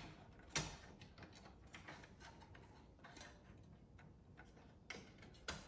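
Faint small clicks and taps of small parts of a cassette deck's tape mechanism being handled and worked loose, the sharpest about half a second in and a few more near the end.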